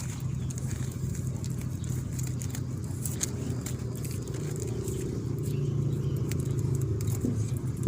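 A motor engine running steadily with a low hum, with a few faint clicks over it.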